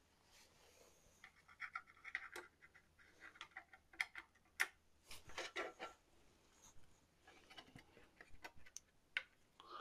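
Faint handling noise as a CPU cooler backplate and its mounting parts are fitted against the back of a motherboard: scraping and rustling with scattered light clicks, the sharpest about two, four and nine seconds in.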